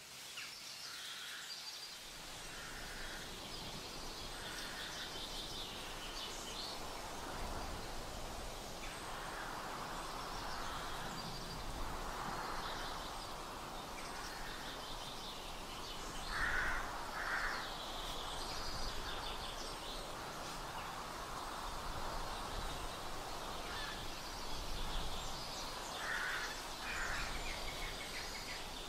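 Outdoor ambience: a steady hiss with birds calling again and again, the loudest a pair of calls about halfway through and another pair near the end.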